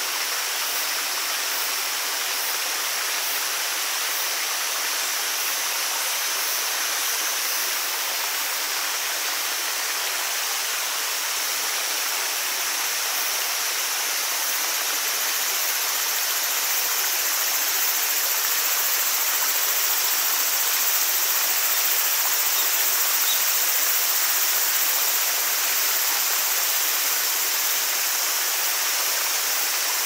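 Forest stream and waterfall water rushing steadily, swelling slightly past the middle.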